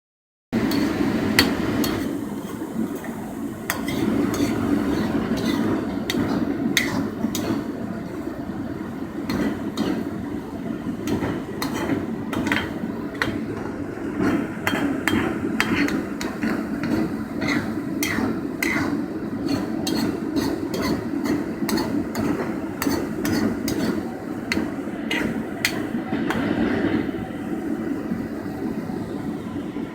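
Repeated sharp taps and clinks of a utensil against a cooking pot or pan, as when stirring and scraping, over a steady low rumble.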